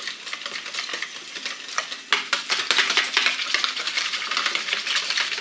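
Wire whisk beating eggs, milk and dill in a plastic bowl: rapid wet splashing and clicking of the whisk wires against the bowl, softer at first and faster and louder from about two seconds in.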